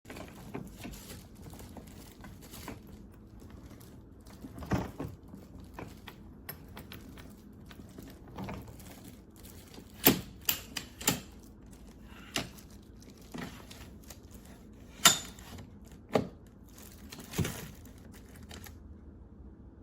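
Irregular sharp clicks and knocks from something hard being handled, about a dozen in all, over a low steady background; the loudest come about halfway through and again a little later.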